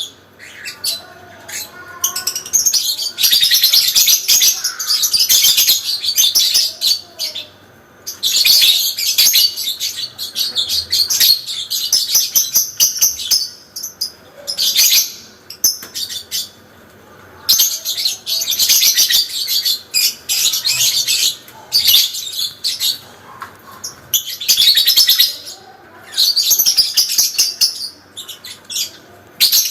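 Parblue lovebird singing its long chattering 'ngekek panjang' song: rapid, high-pitched twittering in long bouts of several seconds, with short pauses between them.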